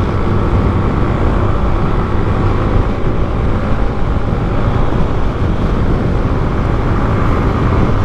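Yamaha Mio Fazzio's 125cc single-overhead-cam Blue Core scooter engine held at full throttle, pulling slowly up toward its top speed, under steady wind and road rush.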